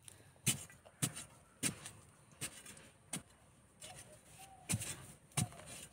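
A long-handled metal digging tool stabbing into dry, stony soil, about seven sharp strikes, roughly one every half-second to second with a short pause in the middle.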